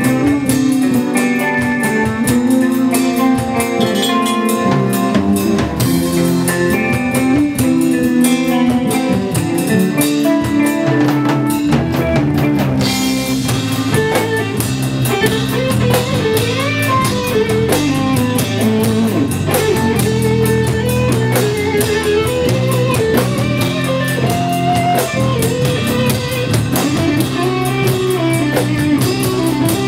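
Live instrumental jazz-fusion rock band playing: electric guitar lines over a drum kit, the drums and cymbals growing fuller a little before halfway through.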